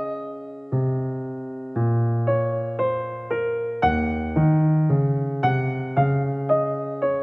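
Background piano music: notes struck about twice a second over low bass notes, each one fading before the next.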